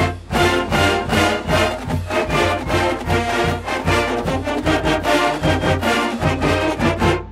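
Brass-led band music with a steady beat.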